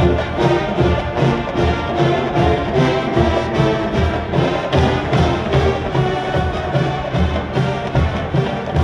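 Large college marching band playing in full, brass carrying the tune over a steady drum beat.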